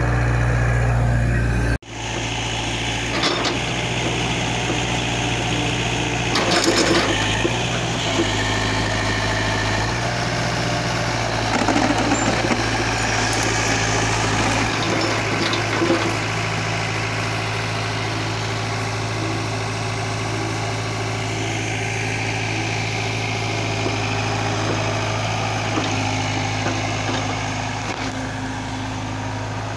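Tata Hitachi EX70 hydraulic excavator's diesel engine running steadily while the machine digs. Its note shifts a few times, and there are a few short knocks in the first part.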